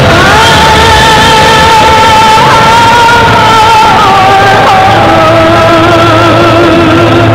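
Background music played loud through the hall's sound system: a slow melody of long, held, slightly wavering notes, shifting pitch a few times.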